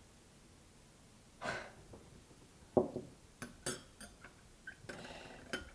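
A person breathes out audibly, then come several small, sharp clicks and knocks.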